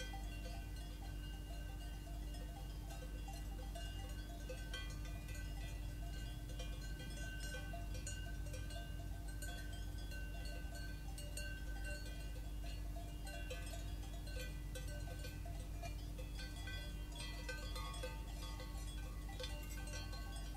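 Cowbells clanking irregularly in an alpine pasture, many small ringing strikes overlapping, over a steady low hum.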